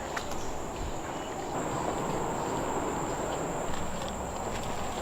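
Insects in tropical forest giving one steady, high-pitched continuous drone, with faint footsteps on the trail beneath it.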